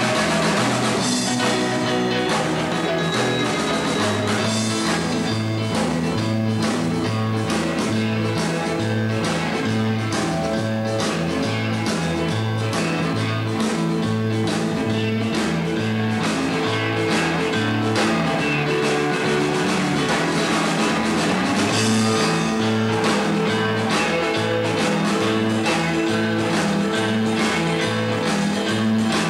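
Rock-and-roll dance music with guitar, bass and drums, playing at a steady beat with the bass stepping between notes.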